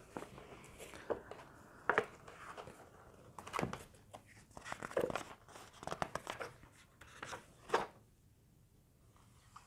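Paper rustling and crackling as book pages are handled and turned, a run of short irregular crackles that stops about eight seconds in.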